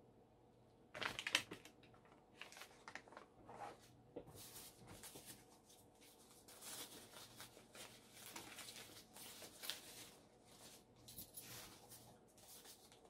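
Faint, irregular rustling and crinkling of paper and plastic packaging being handled and pulled off a disc padlock, with a louder rustle about a second in.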